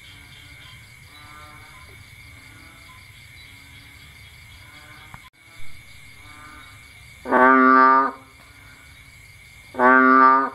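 Two loud bullfrog calls, each held just under a second, one about seven seconds in and one near the end. Behind them runs a chorus of fainter repeated frog calls and a steady high tone.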